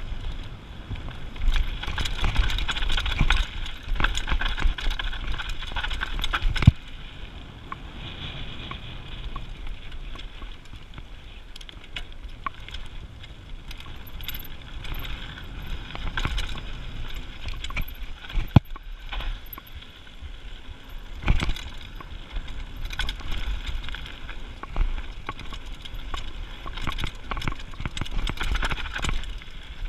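Mountain bike clattering down a gravel trail: tyres crunching over stones, with chain and frame jangling and rattling, and a few sharp knocks from bumps. Rougher and louder over the first several seconds.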